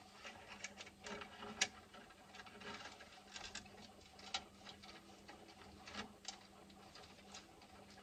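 Faint scattered clicks and rustles of hands and a small metal hand tool working the bundled cable cores at an alarm control panel, with a few sharper clicks and a faint steady hum underneath.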